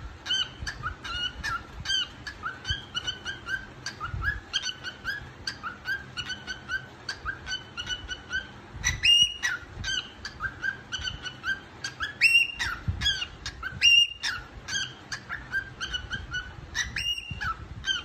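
Grey cockatiel singing: a quick run of short repeated chirping notes, about three a second, broken four times by louder upward-sliding whistles.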